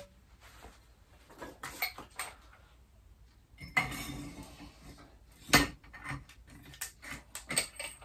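Metal clinks and knocks as a Spax adjustable damper is slid into a Lotus Elan +2 Chapman strut tube and its top parts are handled. A scraping rub comes about four seconds in, and the sharpest clink about a second and a half later.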